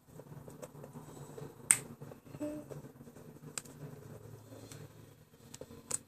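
Eating sounds: a few sharp mouth clicks while chewing chocolate, the loudest about two seconds in.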